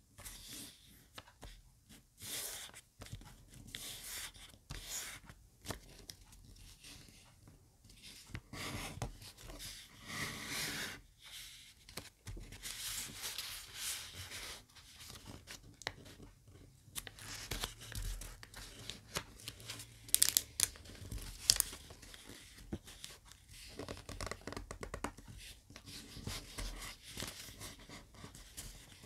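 A sheet of square origami paper rustling and crinkling as hands fold it, with fingers pressing and sliding along the creases: a run of short, irregular scrapes and swishes. A few louder, crisp swishes come about two-thirds of the way through.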